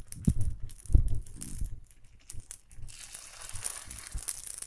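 Kuzhi paniyaram batter sizzling in hot oil as it is ladled into the wells of a paniyaram pan, with a few dull low knocks in the first two seconds. The sizzling grows louder about three seconds in.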